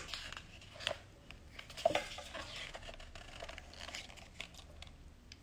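Pages of a large hardcover photobook being turned and handled: faint paper rustling with a few soft taps, the sharpest about two seconds in.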